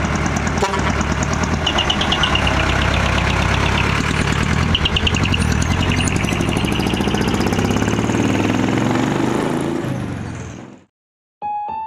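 A loud modified vehicle exhaust running, its engine note rising and falling. It fades out about 11 seconds in, and after a moment's silence piano music starts.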